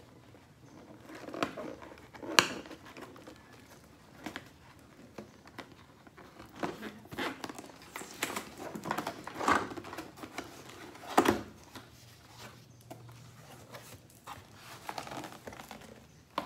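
A cardboard box being opened by hand: flaps pulled apart with rustling, scraping and irregular taps and knocks of cardboard, the loudest about two seconds in and again near eleven seconds.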